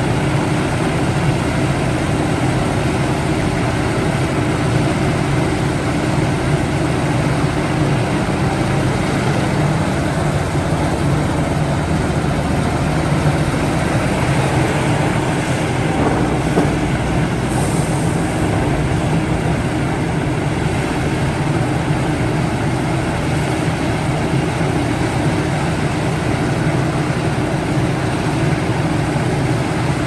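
Heavy diesel engine of a Liebherr 974 excavator running steadily under load while loading trucks, with a brief high hiss a little past halfway.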